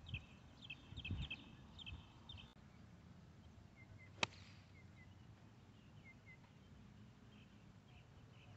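A single sharp click of a 9-iron striking a golf ball off fairway grass, about four seconds in. Before it, birds chirp in quick runs over soft thumps; only faint chirps follow.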